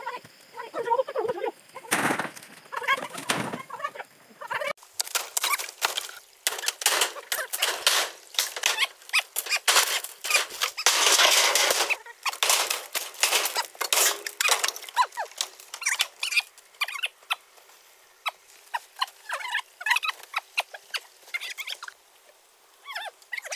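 Bamboo poles and corrugated metal roofing sheets clattering and banging as a bamboo hut is torn apart, with a long loud metallic crash about eleven seconds in. Short squawking calls come and go at the start and near the end.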